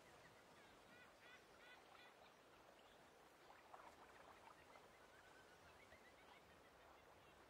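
Faint lake ambience: a steady background hiss with scattered bird calls, short repeated chirps early on and a brief cluster of lower calls about four seconds in.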